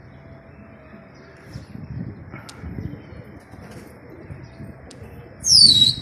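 Wind buffeting the microphone on an open rooftop, with a short, loud whistle gliding down in pitch near the end.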